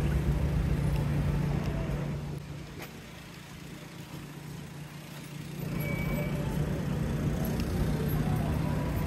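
City street traffic: motor vehicles passing with a steady low engine hum. It dies down for a few seconds in the middle and then rises again.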